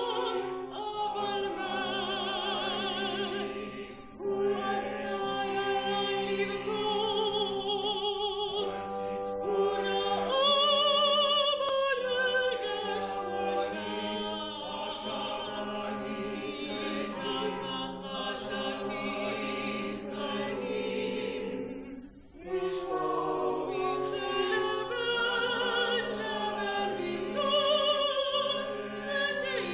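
Operatic ensemble singing: men's and women's voices sing together with strong vibrato, accompanied by a chamber orchestra. The music briefly drops away about four seconds in and again about three-quarters of the way through.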